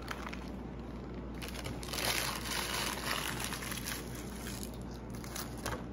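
Paper burger wrapper crinkling as it is handled, loudest about two seconds in and fading out before the end, with a few light clicks over a steady low hum.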